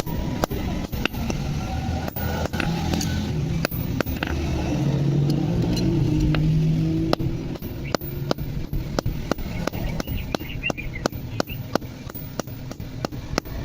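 Hammer striking metal in a steady rhythm, about two to three blows a second, each blow sharp and short. A low engine rumble swells under the blows around the middle and fades.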